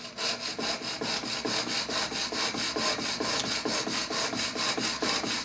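A steel chisel edge, clamped in a honing jig, scraping back and forth on an extra-coarse DMT diamond sharpening stone in quick, even strokes as its bevel is ground.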